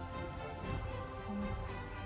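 Background music with jingle bells and a steady, even rhythm.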